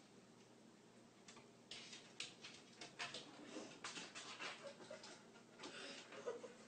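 A cat climbing wooden kitchen drawers and pulling one open: faint, irregular clicks, knocks and rattles of claws and drawer, starting about a second and a half in.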